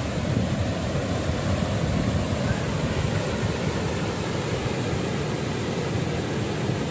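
Surf breaking on a sandy beach, a steady rush of waves, with wind buffeting the microphone as a low, fluttering rumble.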